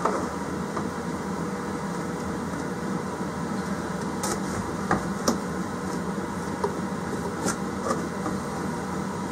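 A few light clicks and knocks of small parts being handled on a workbench, over a steady low hum from a fan or appliance in the room.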